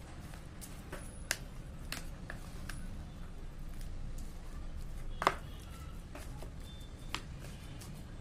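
A spoon knocking and scraping against a plastic bowl while mixing fish pieces in a wet spice marinade: a few sharp clicks, the loudest about five seconds in, over a low steady hum.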